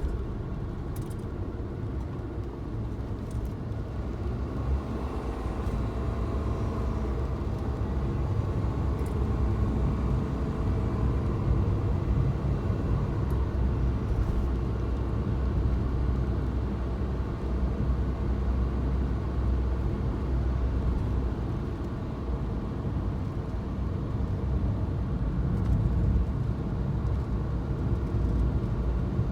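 Suzuki Jimny driving at a steady pace: a steady low rumble of engine and road noise.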